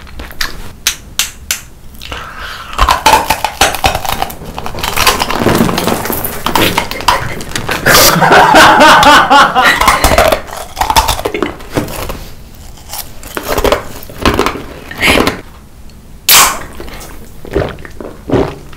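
Close-miked mukbang eating sounds: crunching and chewing of hard blue snacks, with a stretch of wavering vocal sounds from the eater in the middle. A sharp crack comes near the end, then gulping from an energy-drink can.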